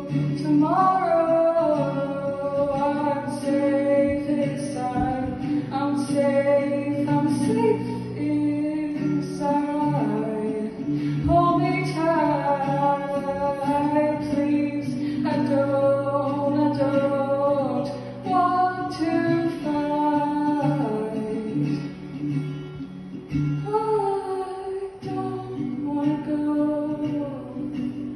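A solo male singer singing a melody while accompanying himself on acoustic guitar, the guitar sounding steady sustained chords under the voice.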